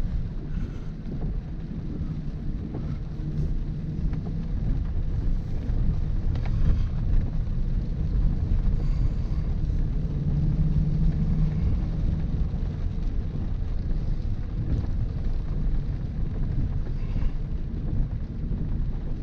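Range Rover Sport driving slowly on a gravel road, heard from inside the cabin: a steady low rumble of engine and tyres on gravel, with a low engine hum that swells around the middle.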